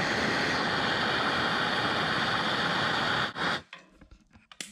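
Gas torch flame hissing steadily while it heats a clogged grease zerk on a baler to soften old, hardened grease. The hiss cuts off abruptly about three and a half seconds in as the torch is shut off, and a sharp click follows near the end.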